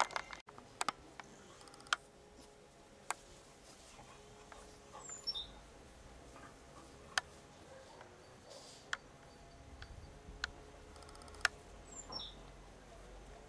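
Faint outdoor ambience broken by sharp, isolated clicks every second or so, with two short high chirps that step down in pitch, one midway and one near the end.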